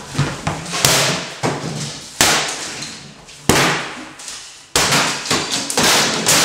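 Sledgehammer smashing painted wooden kitchen cabinets apart: about five heavy blows a second or so apart, each followed by crashing, clattering debris.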